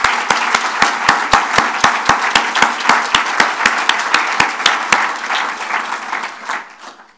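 Audience applauding. One person's claps, close to the microphone, stand out at about four a second until about five seconds in, and then the applause dies away.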